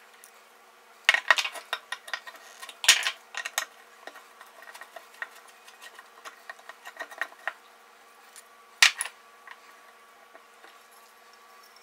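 Metal parts of a vintage Stanley No. 3 bench plane and screwdrivers clinking and clacking on a wooden workbench while the plane is taken apart. There are sharp clacks about a second in and near three seconds, light ticks and scrapes after that, and one loud clack near nine seconds.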